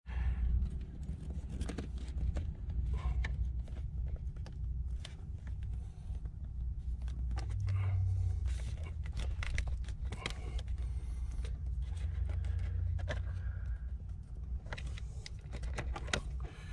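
Scattered small clicks and scrapes of needle-nose pliers and a rubber PCV hose being worked onto a barbed fitting in a car engine bay, over a steady low rumble.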